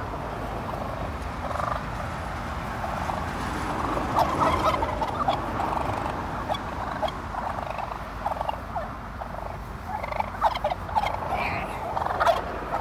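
Wild turkeys calling, with quick runs of short notes about four seconds in and again near the end.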